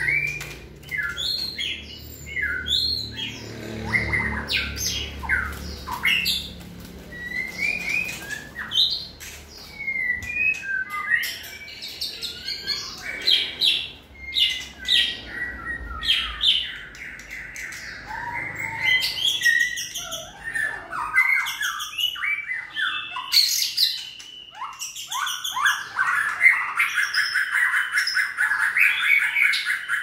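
White-rumped shamas singing: a long, varied run of whistled phrases that slide up and down in pitch, ending in a fast rattling trill over the last few seconds.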